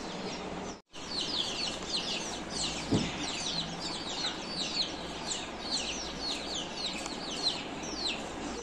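Newly hatched Kadaknath chicks peeping over and over: short, high chirps that fall in pitch, about three a second. The sound cuts out briefly just before a second in, and there is one soft knock about three seconds in.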